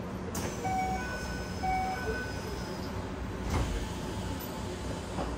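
Door chime of a Keikyu 1000-series train: a two-note chime played twice as the doors close, over a hiss and a high falling whine from the door gear. A single thump about three and a half seconds in as the doors shut, over the car's steady hum.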